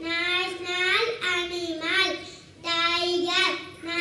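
A young boy singing into a microphone, in held notes with short breaks between phrases.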